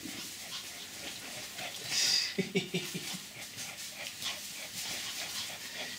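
Small pet dog vocalising during play, with a few short low sounds about halfway through, amid scuffling and clicks on a wooden floor.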